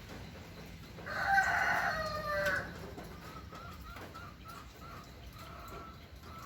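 A rooster crows once, a loud call of about a second and a half starting about a second in, falling in pitch at its end. Faint short calls repeat before and after it.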